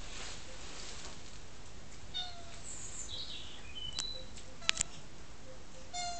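Domestic cat giving short meows at birds outside the window: two brief calls, each dropping in pitch, one about two seconds in and one near the end. A few sharp clicks fall between them.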